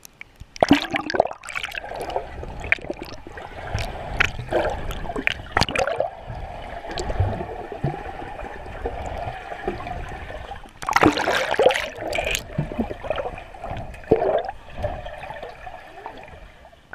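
Water gurgling and sloshing close around the camera, broken by many sharp knocks, with a louder flurry about two-thirds of the way through.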